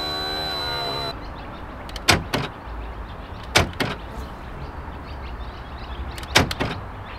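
A small electric motor whines steadily for about the first second. It is followed by sharp clicks and knocks as metal parts are handled inside an open Toyota Chaser JZX100 door panel while its jammed lock mechanism is worked on.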